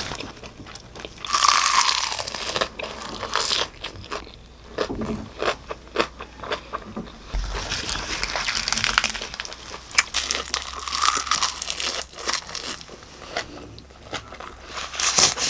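Crunching and chewing of crisp salted roasted laver (gim) wrapped around rice, with many small crackles and two louder spells of crunching, one early and one about halfway.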